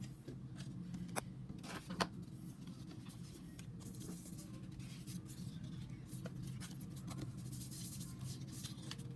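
Album packaging being handled: paper and plastic rustling and scraping with scattered light clicks, the two sharpest about one and two seconds in, over a low steady hum.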